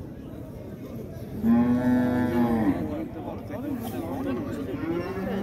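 Cow mooing: one loud, long moo about a second and a half in, and another starting near the end, over a murmur of men's voices.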